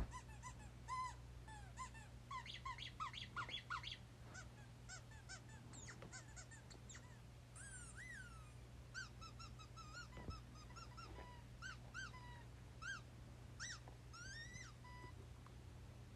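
Dog making many short, high-pitched whimpers and squeaks, each rising and falling, some in quick runs of several. A faint steady low hum sits underneath.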